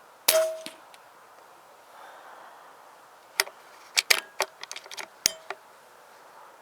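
An air rifle firing once, a sharp crack about a third of a second in with a short ringing tail. Then, from about three and a half seconds in, a quick series of metallic clicks as the rifle is cocked and reloaded.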